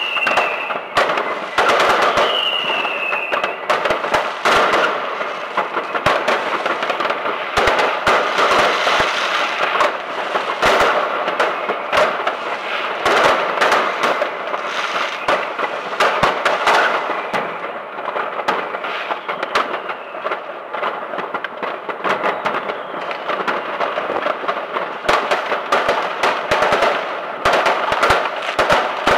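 Fireworks going off in quick, unbroken succession: dense popping, banging and crackling from many shells at once, with two short whistles in the first few seconds.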